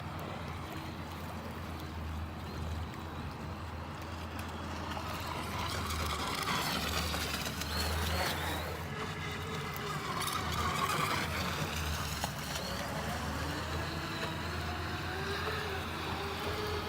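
Joysway US 1 RC racing catamaran's brushless electric motor whining as the boat runs across the water, its pitch rising and falling with the throttle. A steady low hum sits underneath.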